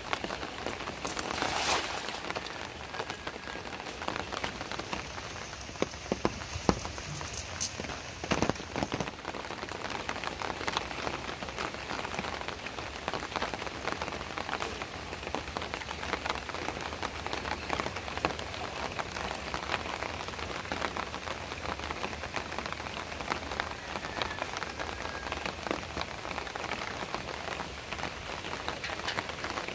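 Steady rain falling, a dense patter of drops hitting the surface. A few louder knocks stand out in the first nine seconds or so.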